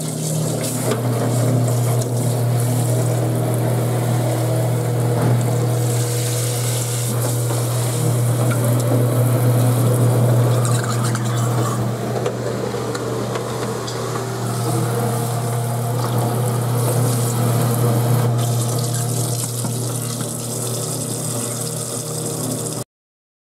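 Waste King L3200 garbage disposal running, a steady motor hum with tap water hissing into the drain over it. It cuts off suddenly near the end.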